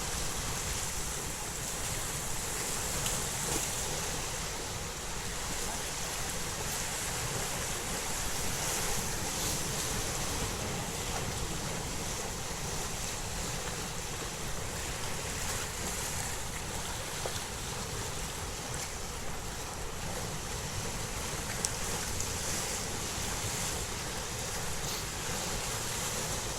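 Sea surf washing in a steady rush, with wind buffeting the microphone in a low rumble.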